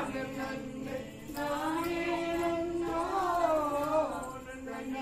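Voices singing a Tamil Valli Kummi folk song in long, drawn-out notes, with a short break about a second in.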